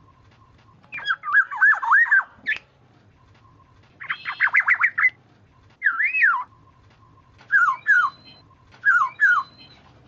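Oriole calling: five bursts of quick, sliding whistled notes, one of them a rapid run of about seven notes, with short pauses between bursts. A faint steady tone sounds in the gaps.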